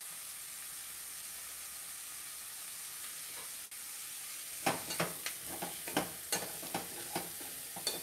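Sliced carrots with onion and garlic sizzling steadily as they sauté in a stainless steel saucepan. From about halfway through, a wooden spoon stirs them, with quick scrapes and knocks against the pan several times a second.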